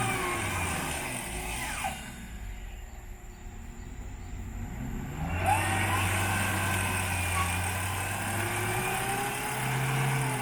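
Off-road 4x4's engine running, its revs rising and falling as it works the vehicle along. For about three seconds in the middle the sound goes muffled and quieter, then the engine comes back clear.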